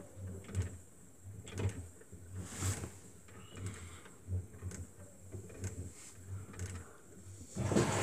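Washing machine drum turning and tumbling its load, with soft irregular knocks about twice a second. Just before the end a steady rushing noise starts.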